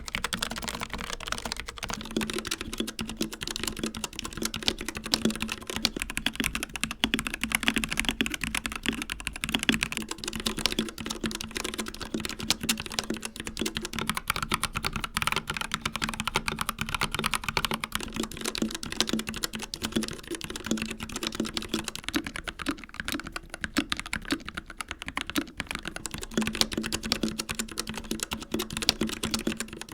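Continuous fast typing on a series of mechanical keyboards in turn: a Logitech MX Mechanical with Kailh Brown switches, a Royal Kludge H81 with Sky Cyan switches, an Akko 3068B Plus with Jelly Black switches, and a Dark Project KD083A with G3ms Sapphire switches. Each keyboard is heard for about eight seconds, and the click-and-clack character of the keystrokes changes at each switch-over.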